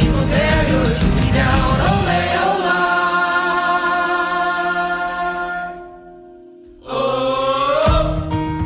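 Folk song with a chorus of voices singing over a drumbeat; about two and a half seconds in the beat drops away under a held sung chord that fades to a short hush, then the voices come back in and the beat returns near the end.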